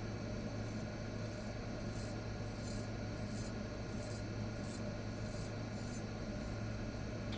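A freshly sharpened 52100 steel chef knife shaving hair off a forearm: a run of short, faint scrapes, about two a second, over a steady low hum.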